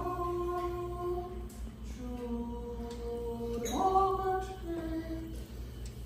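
A single voice singing unaccompanied in long held notes, sliding up to a higher note near the start and again a little past the middle, where it is loudest.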